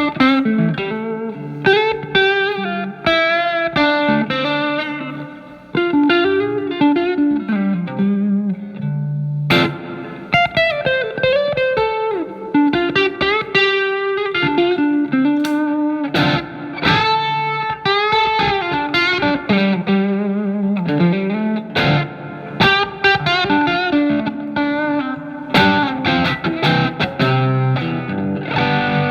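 Telecaster electric guitar played through a Marshall MG15FX amplifier on its crunch channel: lightly overdriven picked single-note lines and chords, with string bends.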